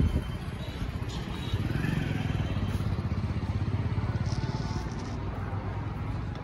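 Low rumble of a motor vehicle's engine, with fast even pulsing, swelling about a second and a half in and easing off after about five seconds, as of a vehicle passing.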